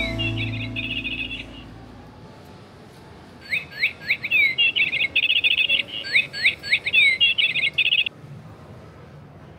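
A songbird singing, starting about three and a half seconds in: a phrase of quick sweeping whistles followed by fast trills, given twice in a row.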